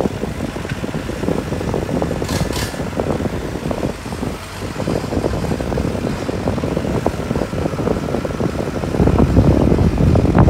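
Sumitomo crawler excavator's diesel engine running steadily with a fast rattle, working the arm in mud. There is a brief high hiss about two seconds in, and the engine gets louder and deeper about nine seconds in.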